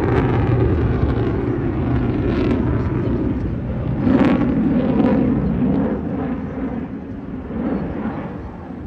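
Jet aircraft flying past, a loud steady rushing engine noise that swells to its loudest about four seconds in and then slowly fades.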